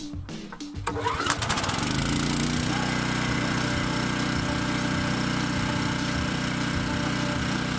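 Briggs & Stratton 5500 portable generator's engine starting about a second in, revving up and settling into a steady run. It is running on propane from a small bottle through a tri-fuel conversion kit.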